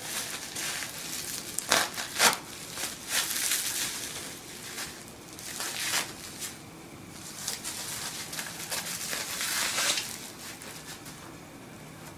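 Packaging being unwrapped by hand: irregular crinkling and rustling of paper or plastic wrapping, with two sharp clicks about two seconds in and a longer rustle near the end.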